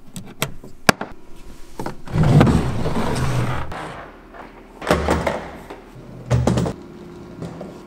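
Two sharp latch clicks as the compartment under the van's platform is unlocked. About two seconds in, a plastic fresh-water tank scrapes and slides out of its compartment, followed by two dull thumps as it is handled down to the floor.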